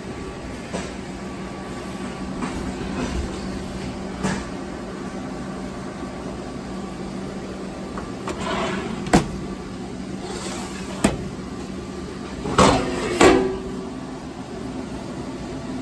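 Steady machine hum from a CNC Swiss-type lathe and its shop surroundings. Over it, a few sharp knocks and clatters like enclosure doors or panels being handled: one about midway, another a couple of seconds later, and a double clatter towards the end.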